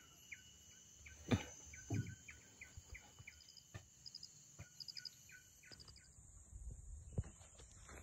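Field ambience: a steady high insect drone, with a short chirping call repeated about three times a second until about six seconds in, and brief clusters of higher chirps. Two soft thumps, the loudest sounds, come just over a second and about two seconds in, and low rustling rises near the end.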